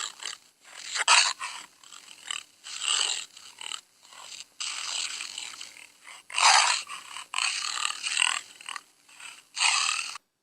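Jaguar calling: a run of hoarse, noisy roaring grunts of uneven length, the loudest about six and a half seconds in, stopping shortly before the end.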